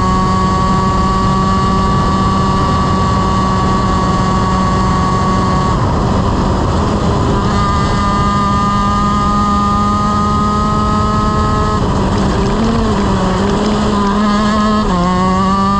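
Honda CR125 single-cylinder two-stroke shifter kart engine at high revs, held nearly steady at a high pitch. The note breaks off at about six seconds and again near twelve, wavers for a few seconds, then drops and climbs again near the end as a gear is shifted and the kart accelerates.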